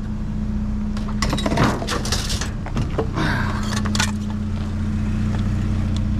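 Metal scrap clattering and knocking as it is handled and shifted in a dumpster, a cluster of sharp clanks in the first half. A vehicle engine idles steadily underneath.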